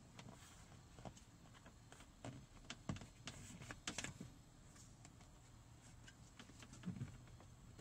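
Faint, scattered clicks and light taps of hands handling the plastic trim, clips and wiring of a car door, about five small knocks over several seconds against near silence.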